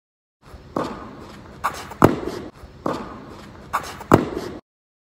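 Two tennis forehands hit with a racket, each a sharp, loud strike of the ball about two seconds apart. Before each strike come softer knocks of the ball, and every hit echoes under the big roof of the court.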